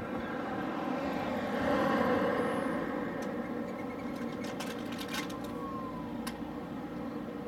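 Steady motor-vehicle engine hum with road noise, swelling about two seconds in, with a few sharp clicks in the second half.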